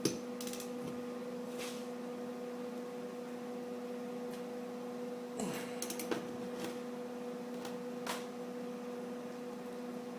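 A steady electrical hum with a few scattered light clicks.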